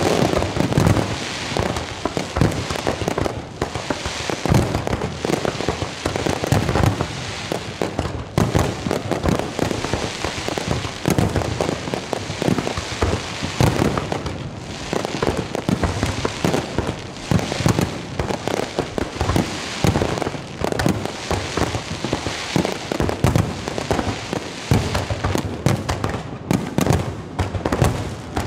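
Large fireworks display: a continuous barrage of overlapping bangs from bursting aerial shells, with crackling in between and no pause.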